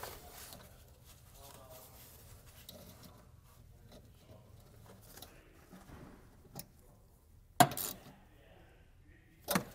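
Faint small metal clinks as a nut and ring terminal are fitted onto the stud of a 20 amp circuit breaker, with one sharper click near the end.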